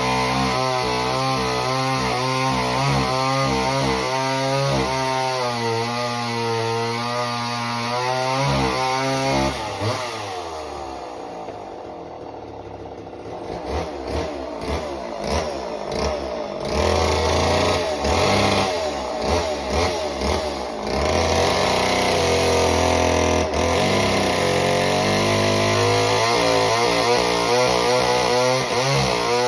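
Homelite Super Mini chainsaw's small two-stroke engine running at high revs, its pitch wavering. About ten seconds in it drops back to a low idle. It then revs up again and is held high, running and revving cleanly on its rebuilt carburettor.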